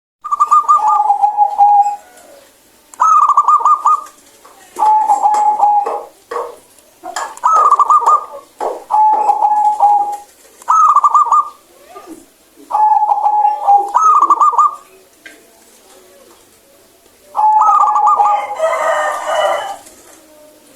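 Zebra dove (perkutut) singing its repeated cooing song: about ten loud phrases, each a quick stuttering trill that settles into a held lower note, with short pauses between them. Near the end, one call comes out rougher and harsher than the others.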